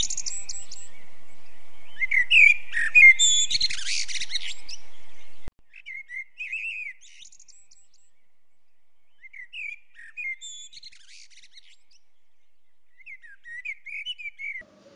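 Birds chirping in quick, high twittering calls over a steady hiss. About five and a half seconds in, the level drops abruptly, and fainter, sparser chirps follow.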